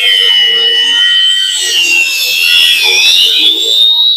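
Electric angle grinder with a thin cut-off disc cutting into the steel shell of a small refrigerator compressor. It gives a loud, steady high whine that sags in pitch as the disc bites, about three seconds in, then climbs back.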